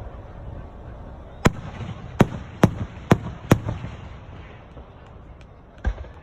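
Fireworks bursting overhead: five sharp bangs in quick succession, about half a second apart, each followed by a rolling echo, then one more bang near the end.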